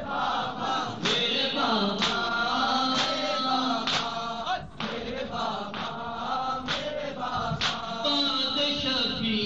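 A man chanting a noha, a Shia mourning lament, into a microphone, with a group of voices chanting along. Sharp beats at about one a second keep time: the mourners' matam, hands striking the chest.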